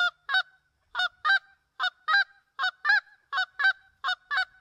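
Canada goose call blown by mouth, playing double clucks at a slow, even practice tempo: about six pairs of short, sharp honking notes, one pair every three-quarters of a second.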